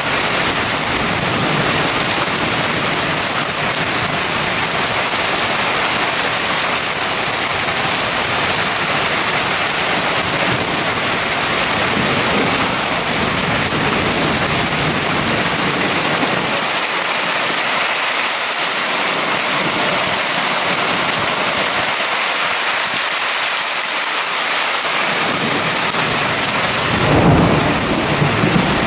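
Heavy rain falling steadily in a thunderstorm, a dense even hiss, with a low rumble of thunder swelling up about two seconds before the end.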